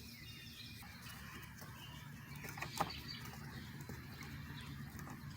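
Faint bird chirping in the background over a low steady hum, with one light click nearly three seconds in.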